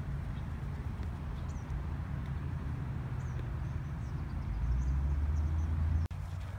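Outdoor ambience: a steady low rumble with a few faint bird chirps, broken off abruptly about six seconds in.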